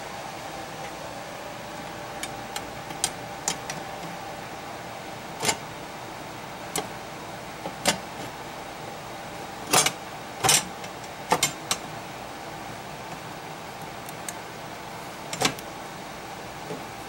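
Scattered sharp clicks and knocks of things being handled on a workbench, about a dozen, loudest in a close cluster about ten seconds in, over a steady hum with a faint held whine.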